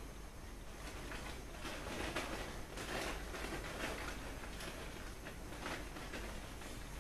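Grated cheese being sprinkled by hand over a tray of vegetables in sauce: faint, irregular rustling with soft light ticks.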